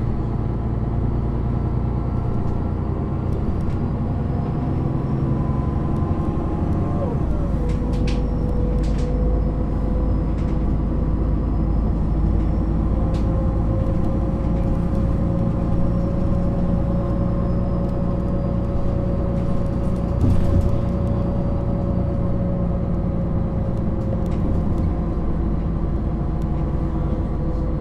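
MAN NG 313 articulated city bus standing with its engine idling steadily, a steady whine riding over the engine note. A few light clicks a little after the quarter mark.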